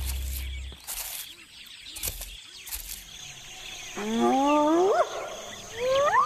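Music fades out in the first second. About four seconds in, a wild animal gives long calls that rise in pitch, and another starts near the end.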